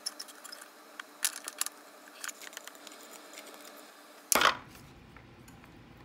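Light clicks and crackles of chopped vegetable mix being dropped by hand into a clear plastic container, with one louder, brief crackle or knock about four and a half seconds in.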